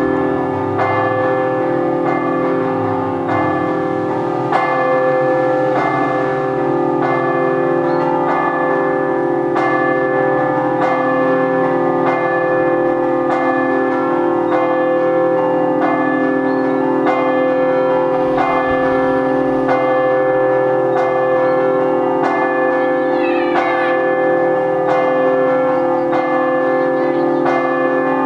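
Church bells played in the Friulian scampanottata style: several bells struck in a quick, even rhythmic pattern, their tones ringing on and overlapping.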